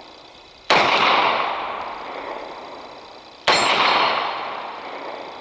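Two CZ P07 pistol shots about three seconds apart, each sharp report trailing off in a long echo.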